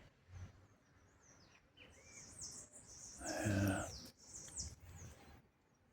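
Small birds chirping: a run of short, high, falling notes repeated over a few seconds.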